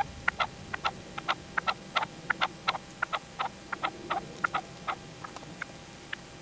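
Red-legged partridge calling: a quick run of short, clipped notes, about four a second, that thins out after about five seconds.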